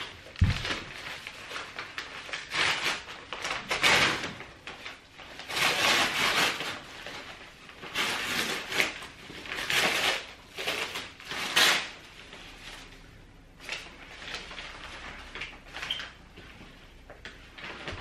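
Brown kraft paper crinkling and rustling in irregular bursts as it is pulled off a potted plant, louder in the first two-thirds and softer after. A low thump about half a second in.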